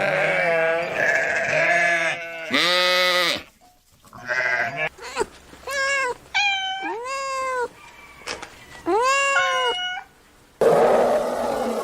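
A series of goat bleats: separate calls, each rising and falling in pitch, some with a wavering tremble, spliced one after another with abrupt cuts. Near the end a rougher, noisy sound without clear pitch takes over.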